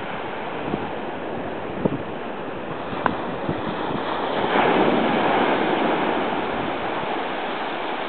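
Ocean surf washing onto the beach, with wind on the microphone. A wave swells louder about four and a half seconds in, then slowly fades.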